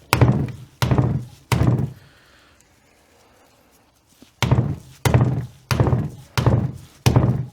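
Hammer blows on the ring gear bolts of a Getrag 226 mm differential, knocking the ring gear off its carrier. Three sharp strikes, a pause of about two and a half seconds, then five more in a steady rhythm.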